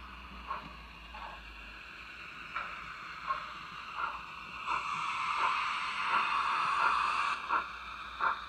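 OO gauge model steam locomotive and tender running past on the track: a steady mechanical whirr of motor and wheels that grows louder as it passes close, with short clicks repeating about every three quarters of a second.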